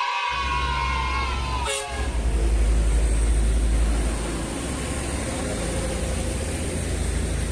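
A multi-tone air horn on a big bus or truck holds a chord that sags slightly in pitch, then cuts off about two seconds in. Under it and after it, the heavy vehicle's engine rumbles loudly as it goes by, loudest about three seconds in.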